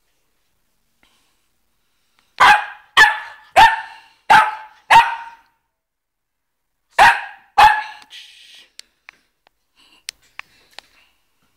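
Boxer dog barking: five loud barks about half a second apart, a pause of about two seconds, then two more barks, followed by a few faint ticks.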